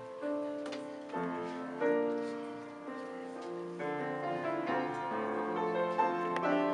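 Grand piano playing the introduction to a slow ballad, with held chords and a melody line changing about every second.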